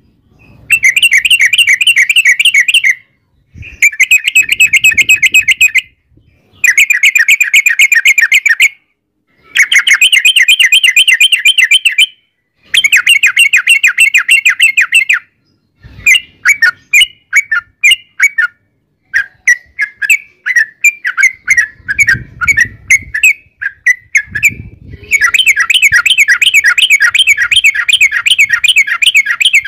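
Yellow-vented bulbul (trucukan) singing loud, fast trilling phrases of about two to three seconds each, with short pauses between them. In the middle it breaks into choppier separate notes, then goes into one long trill near the end.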